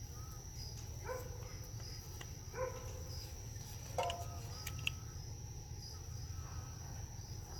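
Outdoor night ambience: a steady high insect trill, with a dog barking faintly three times and a low steady hum underneath.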